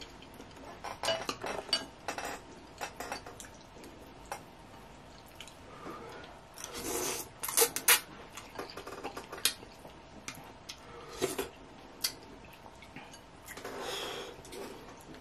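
Close-up eating sounds from a bowl of instant ramen: a plastic fork and a wooden spoon clicking against a glass bowl, and noodles slurped, with a loud slurp about seven seconds in and another noisy stretch near the end as the noodles are lifted from the broth.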